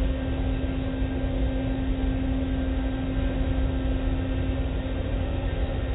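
Automatic car wash heard from inside the car: spinning cloth wash brushes and water spray sweeping over the windshield, over a steady machine hum.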